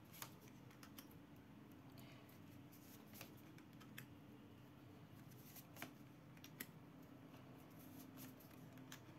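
Near silence with faint, scattered clicks and rustles of tarot cards being handled and drawn.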